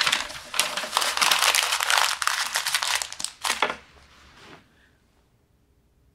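Bedsheets and covers rustling as a person turns over in bed, a loud crinkly rustle that dies away after about four and a half seconds.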